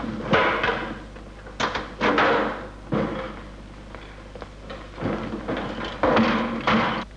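Irregular clunks, bangs and rattles of metal parts being handled and pulled off a Volkswagen Beetle, several hits a few seconds apart, loudest near the start and about six seconds in.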